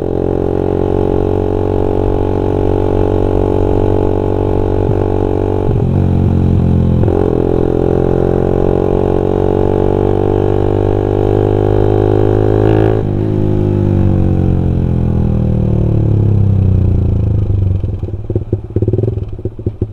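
Suzuki Satria FU's 150 cc four-stroke single-cylinder engine on a PE28 carburettor, heard through a Pro Liner aftermarket exhaust while riding: a full, round note the rider calls 'gurih'. The revs dip briefly twice and climb again, then fall away near the end.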